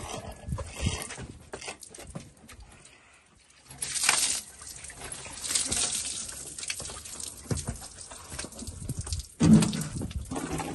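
Water splashing and dripping as a wet horse is washed down, with hissing gushes about four and six seconds in. Near the end a hoof stamps in the soapy puddle, giving a louder thump and splash.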